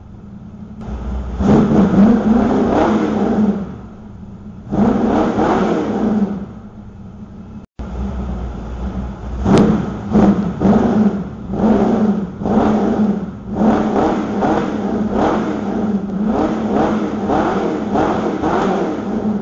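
Lamborghini Reventón replica kit car's engine idling and revved through its freshly welded exhaust: two longer revs in the first half, then a run of quick throttle blips.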